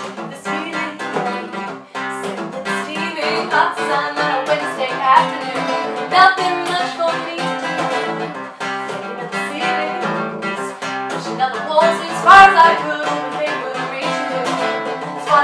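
Acoustic guitar strummed steadily, with a woman singing over it in several long phrases.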